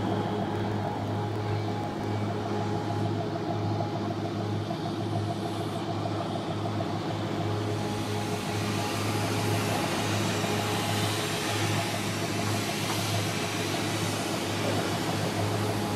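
Steady low engine drone: a constant hum with a few steady higher tones above it and an even noisy wash, at unchanging speed, as of a boat engine idling.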